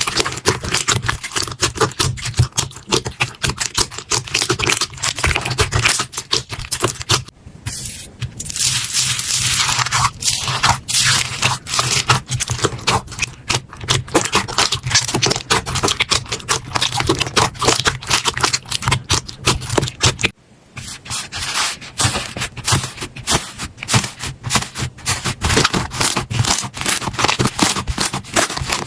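Slime being squeezed, poked and stretched by hand, a dense run of sharp crackling clicks and scraping. It breaks off briefly about seven seconds in and again about twenty seconds in.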